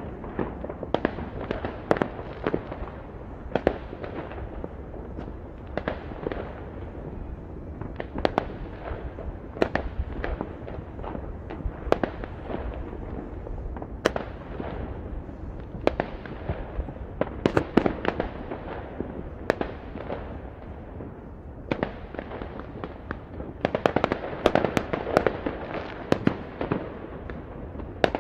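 New Year's Eve fireworks and firecrackers going off all over the city: a constant rumble with irregular sharp bangs and cracks, several a second at times, thickest near the end.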